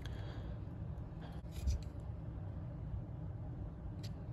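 Faint handling noises from the opened plastic multimeter case and circuit board as it is turned in the hands: a few soft clicks and rubs, about one and a half seconds in and again near the end, over a low steady room rumble. The piezo buzzer is not sounding.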